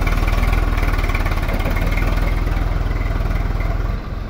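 Swaraj 744 FE tractor's three-cylinder diesel engine running steadily close by with a fast low throb, dropping slightly in level near the end.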